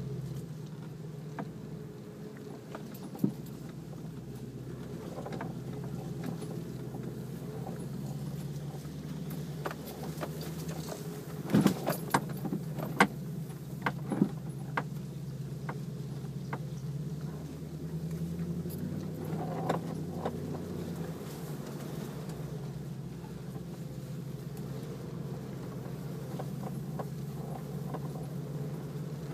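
Four-wheel-drive vehicle's engine running steadily at low speed over a rough off-road track, with knocks and rattles. A cluster of sharp knocks comes about halfway through.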